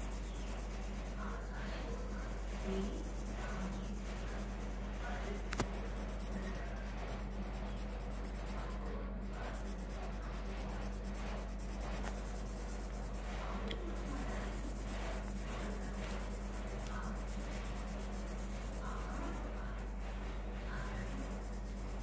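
A colouring pen scratching on paper in short back-and-forth strokes as a drawing is shaded in, over a steady low hum. A single sharp tick about five and a half seconds in.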